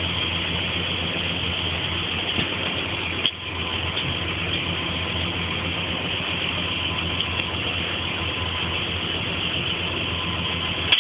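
Tractor diesel engine running steadily at idle, with a brief click about three seconds in.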